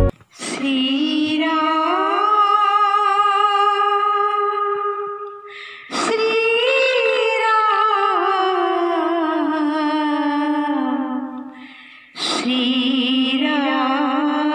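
A woman singing a Shri Ram bhajan unaccompanied, in three long, slow phrases of drawn-out wavering notes, each about five seconds long, with a short breath between them.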